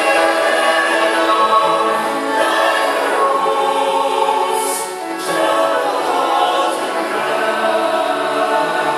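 Mixed choir of men and women singing held chords in parts, with a short break between phrases about five seconds in.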